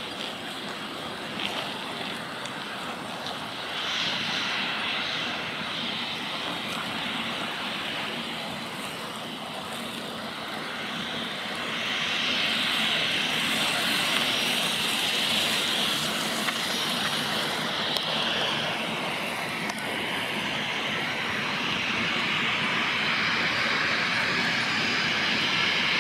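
Jet engines of an Air India Express Boeing 737 moving along the runway: a steady engine noise with a high whine. It grows louder about four seconds in and again about halfway through.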